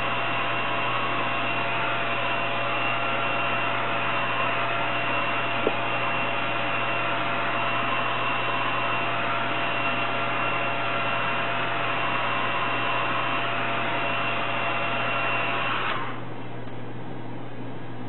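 Hand-held hair dryer running steadily with a whining motor, blowing on freshly hand-painted denim to dry the paint. It is switched off abruptly about two seconds before the end, leaving only a low hum.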